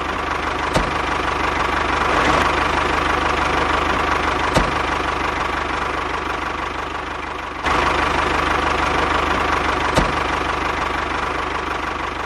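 Diesel tractor engine running steadily with a knocking beat, with a few faint clicks. The sound jumps back up in level about eight seconds in, as if cut.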